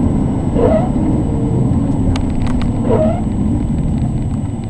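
Maserati 3200 GT's twin-turbo V8 and road noise heard inside the cabin, a steady low rumble that slowly eases. Two short yelp-like sounds cut through, about a second in and about three seconds in.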